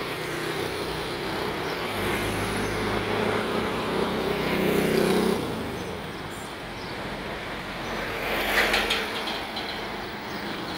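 Street traffic: a motor vehicle's engine hum builds and then falls away sharply about five seconds in, as it passes close. A second, shorter swell of traffic noise comes about eight and a half seconds in.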